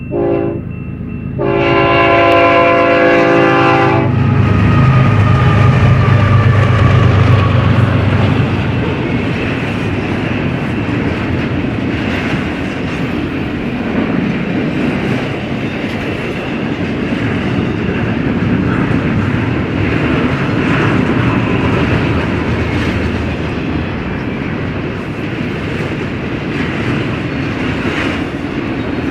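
GE ES44C4 diesel locomotive sounding its air horn for the grade crossing, a short blast and then a longer one, before its engine rumbles past loudly. The intermodal container cars then roll by with a steady rumble and clickety-clack of wheels over rail joints.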